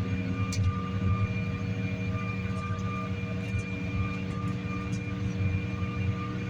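Steady drone of an airliner's engines heard from inside the cabin during the climb after takeoff, a constant hum with a few fixed tones over a low rumble.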